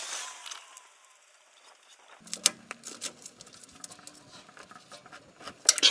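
Light scattered clicks and taps of metal tools and the differential drain plug being handled while it is refitted, with a quick run of sharper clicks near the end.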